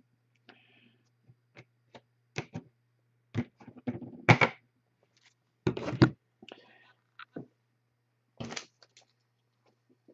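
Trading cards and plastic card holders being gathered and stacked on a tabletop: irregular light clicks and clacks, the loudest about four and six seconds in, over a faint steady low hum.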